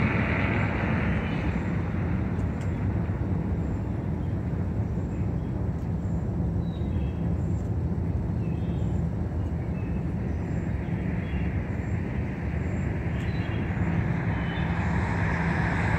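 Norfolk Southern diesel locomotive idling at a standstill: a steady low engine rumble.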